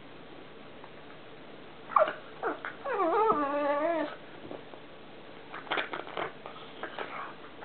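Pug vocalizing while playing: two short falling yelps about two seconds in, then a drawn-out wavering whine lasting about a second, followed by a few short sharp sounds.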